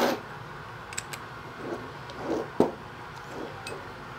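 Light metallic clicks and soft taps of a steel hex key being fitted into the piston cap of a tire inflator body, with one sharper click about two and a half seconds in.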